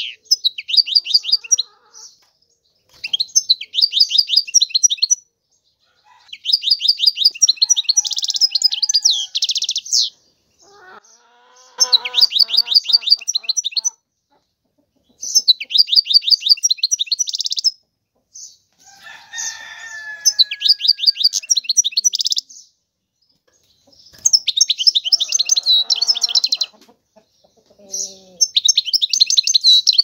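European goldfinch singing: phrase after phrase of rapid, high twittering chirps and trills, each a second or few long, with short pauses between. Fainter, lower-pitched calls sound in a few of the gaps.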